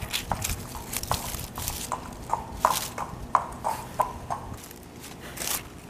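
Horse hooves clip-clopping at a walk: about a dozen short, sharp, ringing clops that stop about four seconds in.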